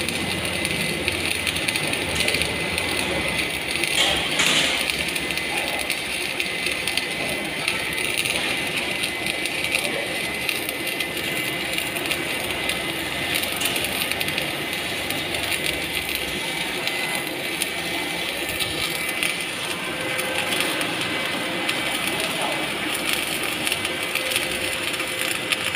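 Electric arc welding: the arc's steady crackling hiss runs on without a break, with a faint steady high whine beneath it.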